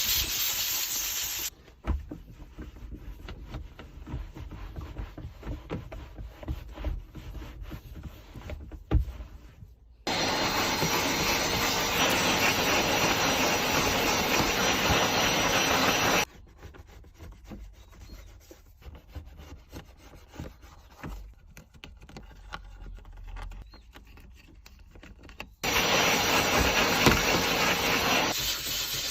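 Car detailing: a loud, steady hiss from a cleaning jet comes and goes in three spells, starting and stopping abruptly. Between the spells come quieter stretches of scrubbing and rubbing with scattered knocks.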